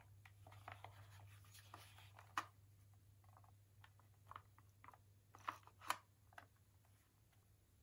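Faint handling sounds of a plastic Fujifilm Instax Mini 9 instant camera being turned over in the hands: light rubbing and scattered small clicks and taps, the sharpest about two and a half seconds in and twice more near six seconds, over a steady low hum.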